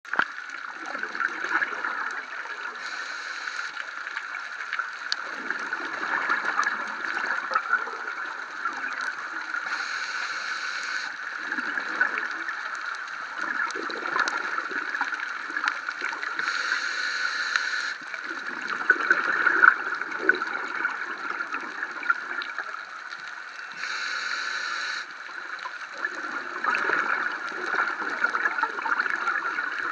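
Scuba diver's breathing heard underwater through the camera housing: exhaled bubbles gurgling in bursts, with a regulator hiss about every seven seconds, over a steady underwater hum.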